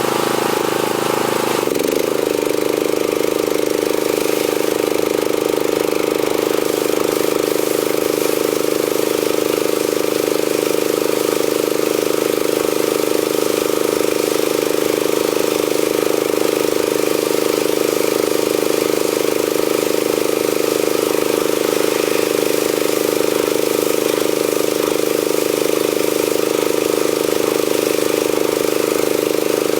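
Gas engine of a DeWalt DPW4240 pressure washer running steadily at a constant speed, with a brief shift in its sound about two seconds in.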